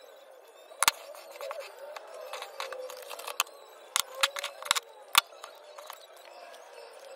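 Scissors snipping paper labels, with small cards handled and set down on a table: a few sharp clicks, one about a second in and a cluster about three and a half to five seconds in.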